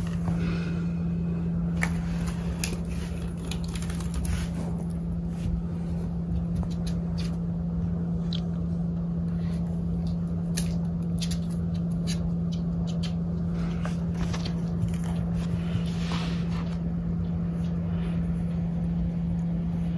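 Cat nibbling and chewing at a potted rose's leaves and stems: a scatter of small irregular clicks and rustles. A steady low hum runs underneath.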